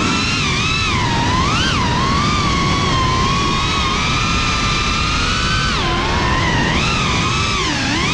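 FPV quadcopter's brushless motors and propellers whining, the pitch swelling and dipping with the throttle during flips and banks, with sharp drops about six seconds in and near the end. Rushing air noise runs underneath, as heard from the GoPro mounted on the drone.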